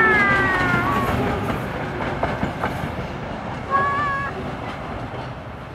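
Loaded freight hopper wagons rolling past on the rails and fading as the train moves away. A high squeal from the wheels, falling in pitch, sounds at the start, and a brief steady squeal comes about four seconds in.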